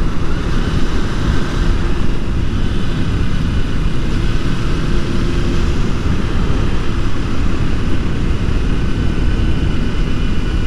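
Motorcycle on the move at road speed: a steady rush of wind and road noise on the rider's microphone, with the engine's faint steady drone underneath.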